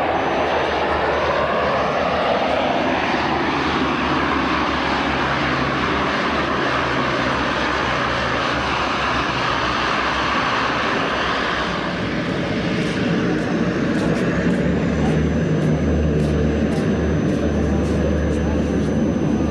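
Canadair CL-415 water bomber's twin turboprop engines running loud and steady as the aircraft flies low past, with a sweeping change in tone over the first few seconds. Short sharp clicks come in over the second half.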